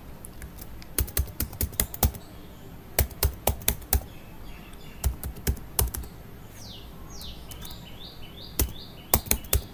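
Computer keyboard typing in short runs of quick keystrokes, with pauses between the runs.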